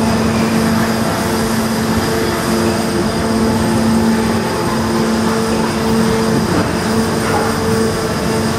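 Injection moulding machine running in a factory hall: a loud, steady rush of machine noise with a held hum that drops out and returns as the machine works through its cycle.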